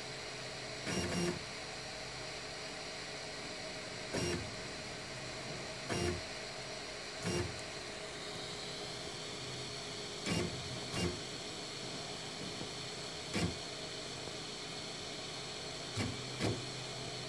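RepRap-style 3D printer with its fans humming steadily while the stepper motors move only in about nine short spurts, one to three seconds apart, with pauses between. This stop-and-go motion is the stutter of a printer starved of commands by a clogged serial connection to its Arduino Mega and RAMPS 1.4 controller.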